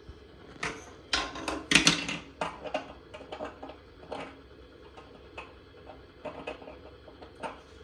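Irregular clicks, knocks and scrapes of tap fittings being handled and pushed together, the loudest cluster about one to two seconds in.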